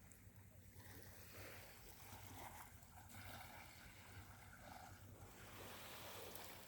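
Near silence: faint seaside ambience with a low, steady hum underneath.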